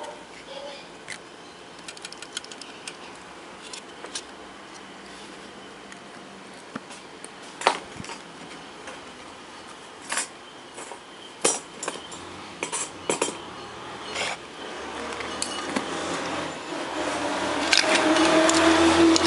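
Scattered light clicks and clinks of small tools and metal parts being handled on an electronics workbench. Near the end a louder rustling handling noise comes in as fingers work a small metal contact close to the microphone.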